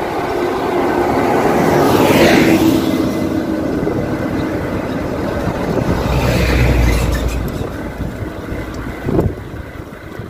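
Motor vehicles passing close by on the road. One sweeps past about two seconds in, and another with a deep rumble goes by around six to seven seconds in.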